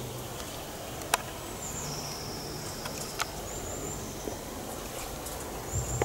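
A camcorder's zoom motor whirring in short spurts as the lens zooms in, a thin high whine over a low hum, with a couple of small handling clicks over faint outdoor background noise.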